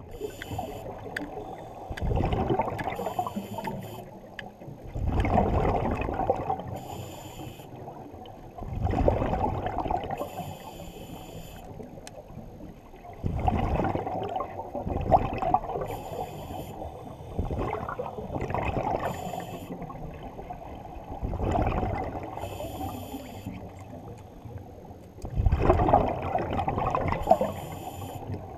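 Scuba diver breathing through a regulator underwater. Each breath pairs a loud rush of exhaled bubbles with a short hiss of air through the regulator, repeating about every four seconds.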